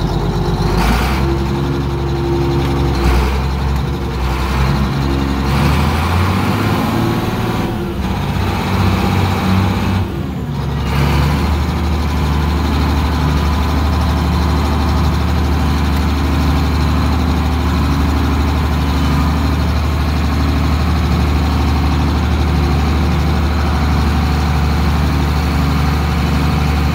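Case 2470 tractor's diesel engine running, its speed shifting over the first ten seconds or so, then holding steady.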